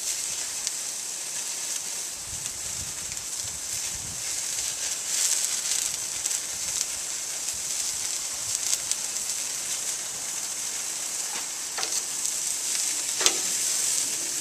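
Italian sausages sizzling steadily as their casings sear on a hot charcoal grill grate. A few sharp clicks of metal tongs come near the end as the sausages are moved.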